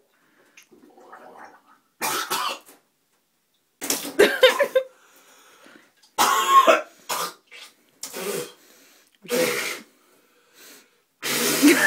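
A man coughing hard in about six separate fits with short pauses between, choking on a spoonful of dry ground cinnamon.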